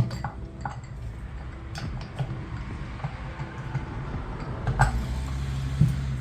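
Metal transmission parts being handled during a teardown: scattered sharp clicks and knocks at irregular intervals, the loudest right at the start and two more near the end, over a steady low hum.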